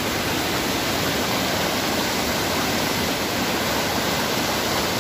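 Swollen creek in flash flood: muddy floodwater rushing and churning over rocks, a steady, loud rush of turbulent water.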